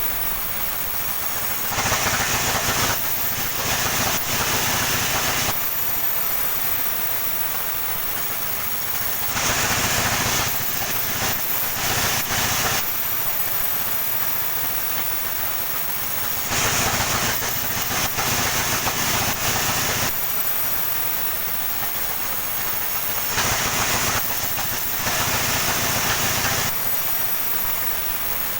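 Sawmill cutting coconut palm trunk: a steady machine hum, with the saw running louder and hissier through the wood four times, each cut lasting about three and a half seconds.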